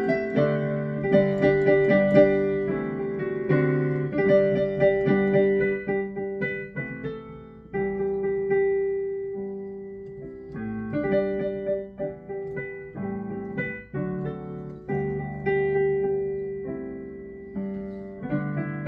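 Yamaha Clavinova digital piano playing a Christmas medley: struck chords under a melody, each note decaying, with a softer passage in the middle.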